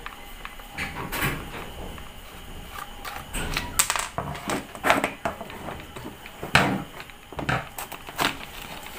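Plastic housing of a Stanley angle grinder being handled and twisted apart by hand: irregular clicks and knocks, the sharpest about four, five and six and a half seconds in.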